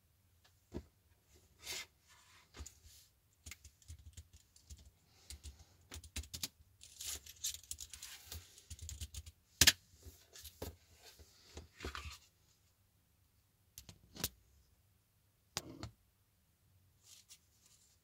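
Irregular clicks, taps and rustling from an ultra-thin wireless Bluetooth keyboard being handled and moved about on a wooden table, busiest midway, with one sharp click near the middle.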